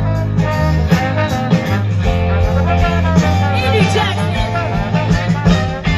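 Live soul and funk band playing, with trumpet and saxophone over electric guitars and a drum kit.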